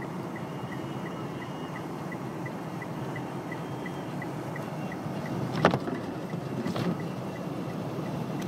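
Blizzard wind buffeting a car, a steady rushing with a faint whistle at times. A light tick repeats about three times a second throughout. A sharp gust slams against the car about two-thirds of the way in, with a weaker one a second later.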